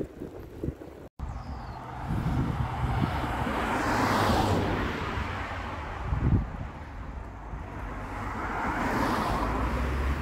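Motor vehicles passing on the road: one swells past, loudest about four seconds in, and another comes up near the end, over a low steady hum. A short knock just after six seconds.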